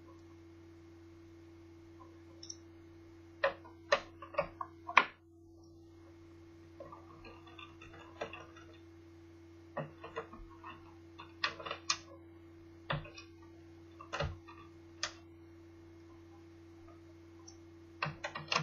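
Irregular sharp clicks and taps of a laptop being taken apart, plastic case parts and tools knocking, with a cluster of loud ones around four to five seconds in. A steady low hum runs underneath.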